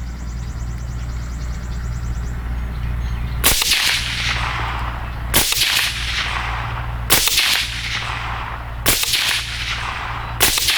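Five shots from a CMMG Banshee 5.7x28mm pistol with a 5-inch barrel, fired slowly about two seconds apart, each with a short trailing echo.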